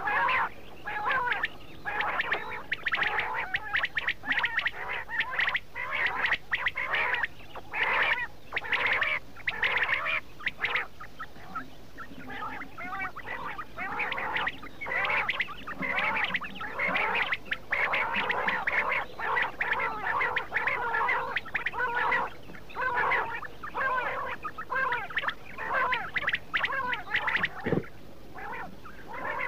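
Quail calling in a dense, unbroken chorus of many overlapping, chattering calls.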